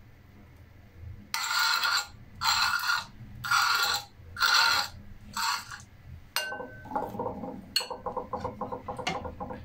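A metal spoon scraping ground urad dal paste off a rough sil-batta grinding stone in five rasping strokes about a second apart. Then a click and a quick run of light clinks as the spoon knocks against a glass bowl, dropping the paste into it.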